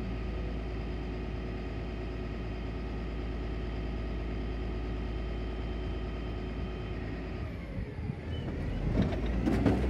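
A 2002 Dennis Phoenix refuse truck running steadily with its tailgate raised, a steady drone with a faint whine. After about seven and a half seconds the drone drops away, and louder knocks come near the end as the truck gets moving.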